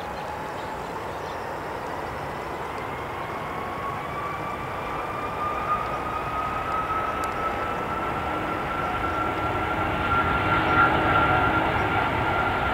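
Aircraft engines whining at an airport, the whine rising slowly in pitch over a rumble that grows gradually louder.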